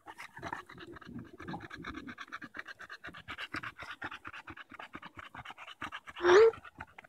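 English bulldog panting hard and fast, about five breaths a second. Near the end comes one short, loud call that rises in pitch.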